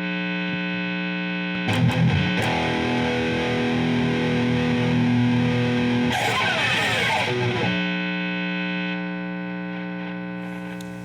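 Distorted electric guitar music drenched in effects: long sustained chords, with a busier, noisier passage in the middle that settles back to held tones and fades near the end.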